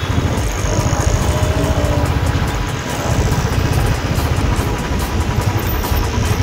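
Motorcycle engine running steadily at low road speed, with wind rushing over the microphone.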